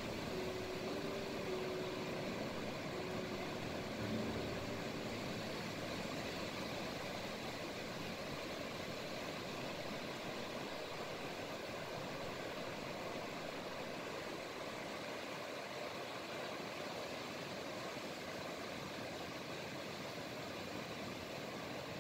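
Sea waves breaking and washing up a sandy shore: a steady, unbroken rush of surf. Faint background music notes sound over it for the first few seconds.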